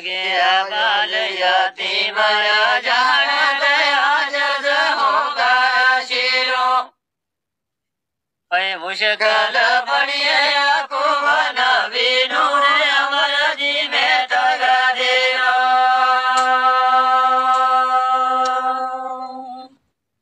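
Unaccompanied man's voice singing a Gojri folk verse (bait) in long, wavering phrases. The first phrase stops about seven seconds in, and after a brief pause the second phrase ends on a long held note that fades out near the end.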